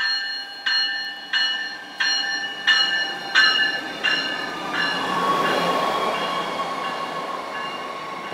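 A warning bell rings about eight strokes, roughly one and a half a second, as a Stadler GTW diesel light-rail train comes into the station. About halfway through the bell gives way to the noise of the cars passing close by, with a steady high wheel squeal.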